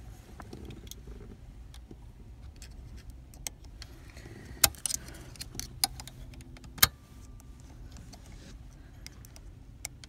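Metal pick clicking and scraping inside the ignition lock cylinder housing on a Honda CRX's steering column: scattered light ticks, with two sharp clicks, one about four and a half seconds in and another near seven seconds.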